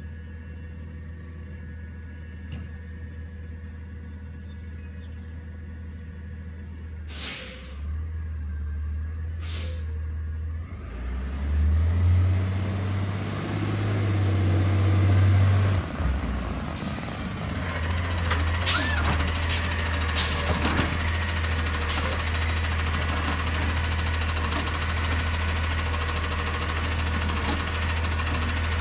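Autocar ACX garbage truck with a McNeilus ZR automated side-loader body approaching and pulling up: a steady engine hum with two sharp air-brake hisses about seven and nine seconds in. The engine grows louder about halfway through as the truck draws near, then it runs close by with more short air hisses and clicks as it stops.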